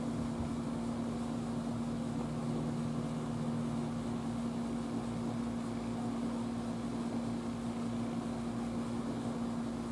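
Steady mechanical hum with one constant tone and a soft even rushing underneath, unchanging throughout.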